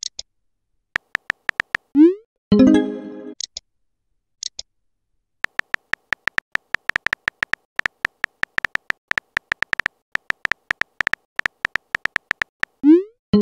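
Texting-app sound effects: quick keyboard-tap clicks as letters are typed, a few around one second in and a steady fast run from about five seconds on. About two seconds in and again near the end, a message-send sound plays, a short rising swoosh followed by a bright pitched chime.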